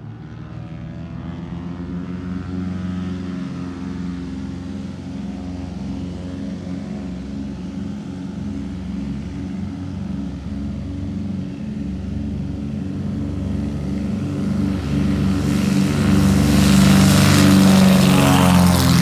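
Britten-Norman BN-2 Islander twin-propeller aircraft running its engines at high power on its takeoff roll: a steady propeller drone that swells slowly, then grows loudest with a rushing propeller noise about 15 seconds in as it passes close, its pitch bending at the pass.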